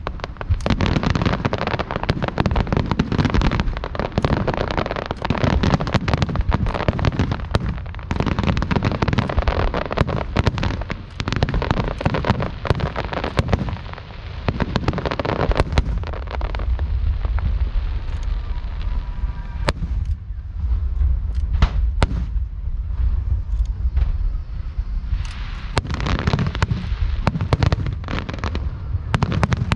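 Aerial fireworks shells bursting in a rapid, continuous barrage of bangs and crackling with a deep rumble. The barrage thins out for several seconds past the middle, then builds again near the end.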